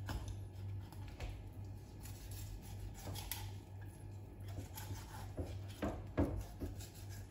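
A kitchen knife slicing and scraping along a whole fish's backbone to cut a fillet away, with soft rasping strokes and a few small knocks of the blade on a plastic cutting board, the sharpest a little after six seconds in.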